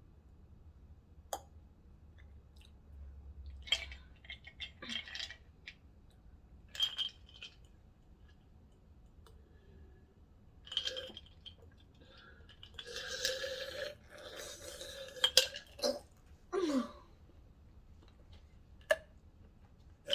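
Close-up eating sounds of a Subway sandwich: chewing and mouth sounds in short separate bursts, with a few sharp clicks and one longer, louder stretch about thirteen seconds in.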